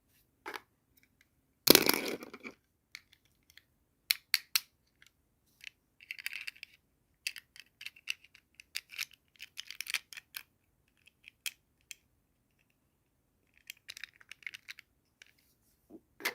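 Doll-set packaging and small plastic toy pieces being handled: scattered clicks and taps mixed with short rustles. The loudest is a burst of rustling about two seconds in.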